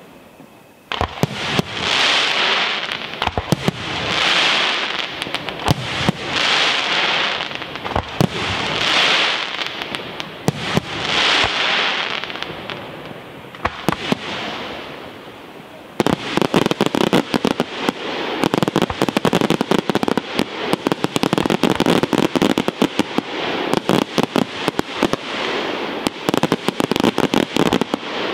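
Aerial fireworks: shells burst about every two seconds, each swelling into a loud hiss of falling sparks. About halfway through this gives way to a dense, rapid crackle of many small sharp reports.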